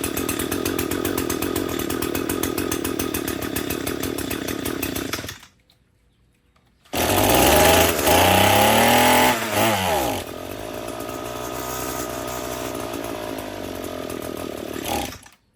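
Echo SRM-225 string trimmer's small two-stroke engine running fast and steady on its freshly cleaned carburetor, then stopping abruptly about five seconds in. After a short silence it runs again, revved up and down a few times, then settles to a steadier, quieter idle before cutting off near the end.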